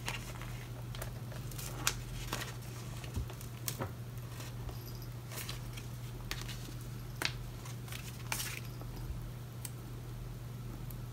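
Scattered small clicks and rustles of a sheet of sticker flags being handled and peeled, over a steady low hum.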